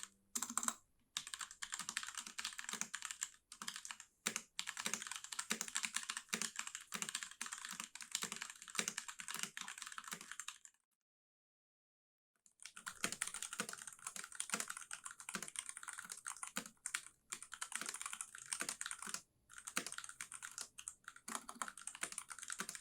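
Fast typing on an RK61 mechanical keyboard fitted with thick PBT cherry-profile keycaps: a dense, even run of key clacks, lower-pitched because of the thicker keycap plastic. The typing breaks off for about two seconds in the middle, then starts again.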